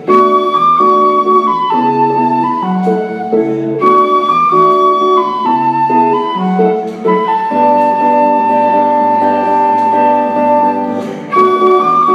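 Flute playing a melody over an archtop guitar's chords, the flute holding one long note for a few seconds past the middle.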